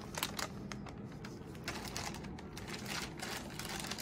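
Plastic packaging rustling and crinkling in gloved hands as the cycler's disposable cassette set is unwrapped, with irregular small crackles.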